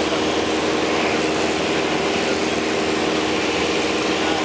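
Steady in-cabin drone of a light high-wing airplane's engine and propeller in flight: a constant hum of a few held tones under an even rush of air noise.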